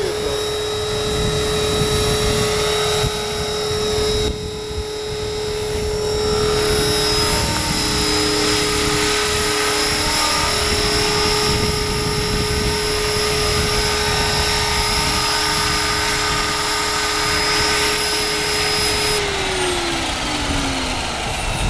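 Electric RC helicopter, an Align T-Rex 500 Pro in an MD500E scale fuselage, in flight: a steady high motor whine over the rotor blades. About nineteen seconds in, after it has landed, the motor and rotor spool down with a falling pitch.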